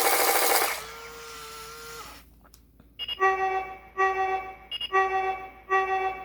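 Electronic sound effects from a G.I. Joe Duke accelerator suit toy's sound chip: a loud noisy blast that cuts off within the first second, a steady pitched tone, then a pulsing alarm-like tone repeating about once a second with short higher beeps between.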